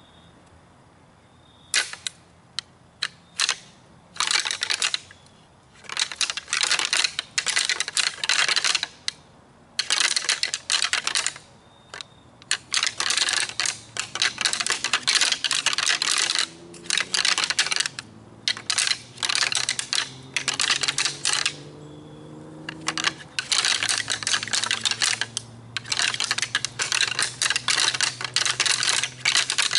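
A pair of deer antlers rattled together by hand: a few single clacks about two seconds in, then long runs of rapid clattering broken by short pauses. Antler rattling imitates two whitetail bucks sparring during the rut, to draw a buck in.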